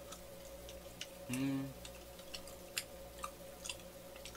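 Faint wet mouth clicks of someone chewing a soft, sticky rice cake (manggae-tteok), with a short closed-mouth "mm" about a second and a half in. A faint steady tone sits underneath.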